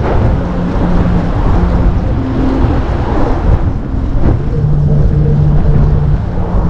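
Steady road noise while riding in traffic: motor vehicles running alongside, with wind rumbling on the microphone.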